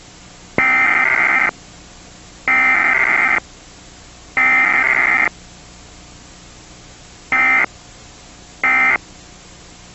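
Emergency Alert System SAME data bursts, a buzzing digital tone: three long header bursts of about a second each, a second apart, then two short end-of-message bursts, with a third starting at the very end. A steady hiss lies under everything, and the tones are smeared by generation loss from repeated copying.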